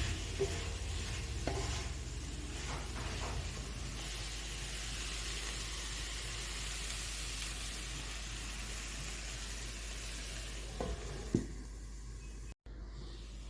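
Egg and mixed vegetables frying in a pan under a lid on a very low flame: a steady sizzling hiss with a few light clicks. There is a single sharp knock about eleven seconds in, after which the sizzle is fainter.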